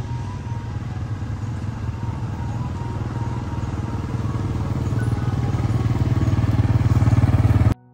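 Small motorcycle engine running as the bike rides up and approaches, growing steadily louder; the sound cuts off suddenly near the end.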